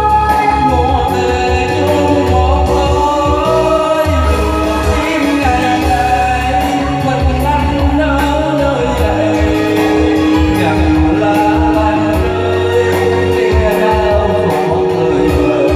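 Singing through a PA system over amplified backing music, with held vocal notes and a heavy, pulsing bass.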